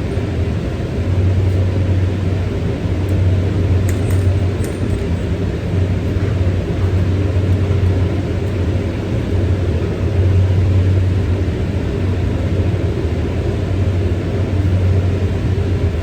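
Steady, loud low-pitched hum of running machinery, with a few faint clicks about four seconds in.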